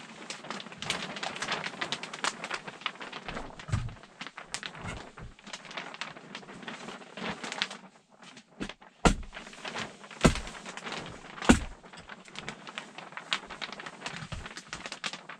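Sheet of clear polyethylene vapor barrier rustling and crinkling as it is handled and pulled up against the rafters, with three sharp knocks about a second apart past the middle.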